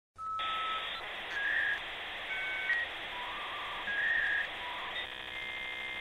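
Electronic intro jingle: a string of held beep-like tones at shifting pitches over a steady hiss, turning into a buzzy tone about five seconds in.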